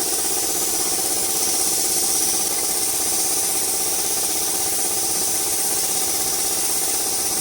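An engine or motor running steadily at an even idle, with a constant high hiss over it.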